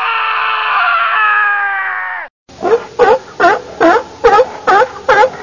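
Intro sound effects: a long, loud cry of about two seconds, sliding slightly down in pitch and cutting off suddenly. After a brief gap comes a run of about eight quick repeated calls, two to three a second.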